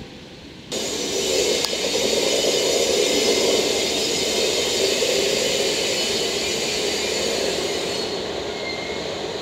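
JR Freight EF510 electric locomotive rolling slowly past, a steady running noise of its wheels on the rails that starts abruptly just under a second in.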